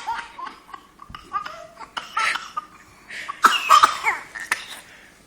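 An 11-month-old baby laughing in bursts of quick, short giggles, a second burst a little past halfway, dying away near the end.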